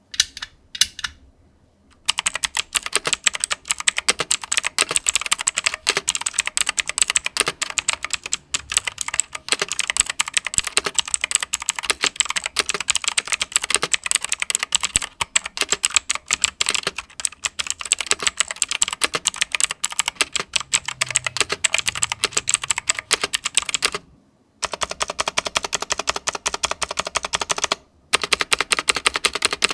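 Typing on a Leaven K620 60% mechanical keyboard with Besun switches, an ABS case and plate, and stock, unlubed stabilizers: a fast, dense run of key clacks with a couple of short pauses near the end.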